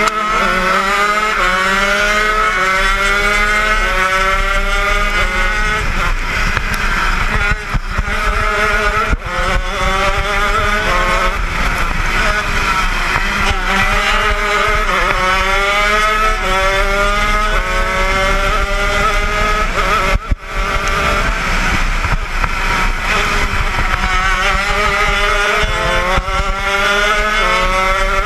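80cc two-stroke shifter kart engine at racing speed, repeatedly revving up in rising sweeps and dropping in pitch at each gear change and lift for the corners, with a brief cut in sound about twenty seconds in.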